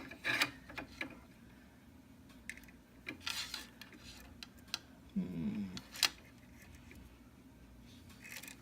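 Scattered small clicks and taps of hands handling fans, plastic parts and wiring while fitting them into a 3D printer, most of them in the first second and around three and six seconds in. A brief murmur of a voice comes about five seconds in.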